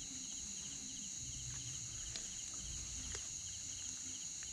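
Steady high-pitched insect chorus with a faint, evenly repeated chirping, over a low rumble and a few faint clicks.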